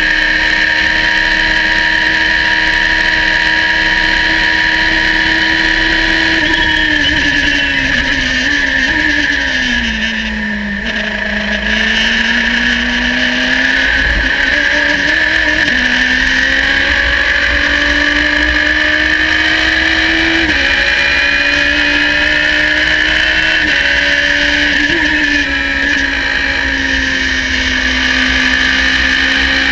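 Radical race car's engine at full throttle in top gear, its pitch holding steady, then falling for several seconds as the car brakes and downshifts for a corner. The engine then revs up again out of the corner, with short dips in pitch at each upshift.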